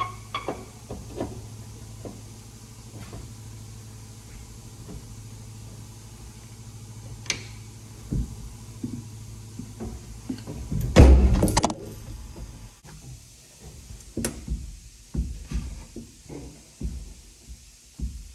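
Scattered metal knocks and clanks as a tractor cab door is hung on its freshly welded hinges and swung, with one loud metallic clatter about 11 seconds in. A steady low hum runs underneath and stops about 13 seconds in.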